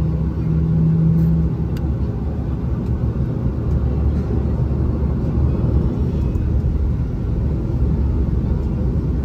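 Steady low rumble in the cabin of a Boeing 737-700 taxiing after landing, its engines at idle. A steady hum within it stops about a second and a half in.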